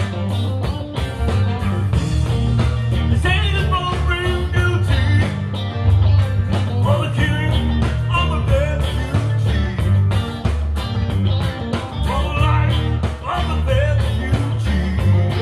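Live rock band playing amplified electric guitars, bass and drums, with a steady drum beat and lead lines bending in pitch.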